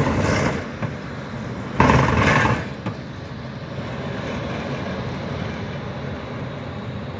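ZET low-floor tram rolling past on street track and pulling away. There are two loud surges of rolling noise in the first three seconds, then a steadier, quieter traffic rumble.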